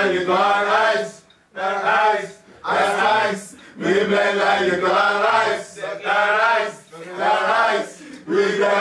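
A small group of men singing together, a short chant-like phrase sung again and again with brief breaks between lines.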